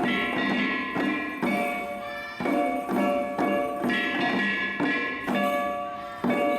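Shishimai lion dance festival music: rhythmic percussion struck roughly once a second, each sharp strike followed by ringing metallic tones.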